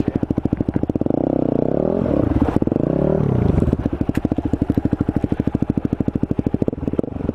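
Supermoto motorcycle engine idling with a rapid, even beat. It is revved up and back down between about one and three and a half seconds in, then settles back to idle.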